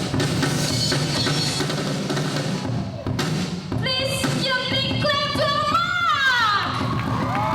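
Live rock band playing: a drum kit pounding for the first few seconds, then sustained melodic notes that step around and slide down in pitch about six seconds in.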